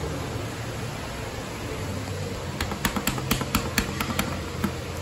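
Elevator car's door-close push button pressed over and over, a quick run of sharp clicks about halfway in, over a steady low hum.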